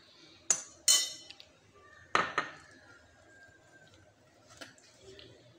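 A metal spoon clinking against glass bowls: three sharp clinks in the first two and a half seconds, the glass ringing briefly after each, then a couple of faint taps.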